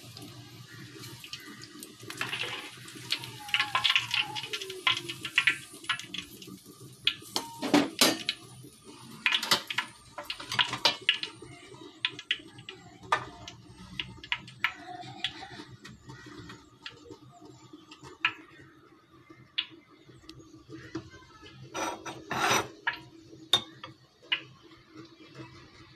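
Metal utensils and cookware clinking, knocking and scraping against a pan of frying oil, with the oil sizzling in the first few seconds. Sharp clinks come irregularly, loudest about eight and twenty-two seconds in.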